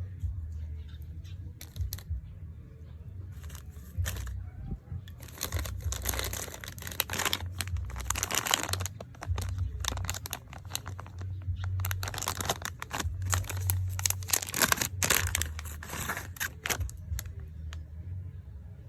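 Plastic packaging being handled and torn open: crinkling and tearing in two busy stretches, about five to nine seconds in and again about twelve to seventeen seconds in, with lighter rustles between.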